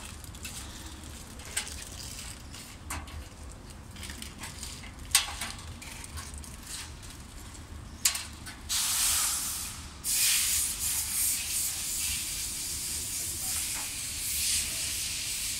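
CB-250X syringe flow packing machine running: a steady low hum under a soft hiss with a few light clicks. About nine seconds in the hiss grows louder and stays so.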